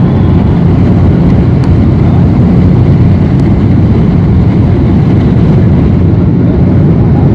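A motor vehicle running steadily: a loud, even low rumble with a faint steady engine hum in it.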